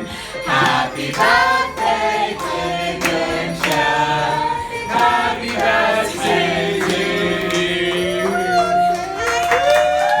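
Background pop music with a steady beat and singing without clear words. Long held, gliding vocal notes come near the end.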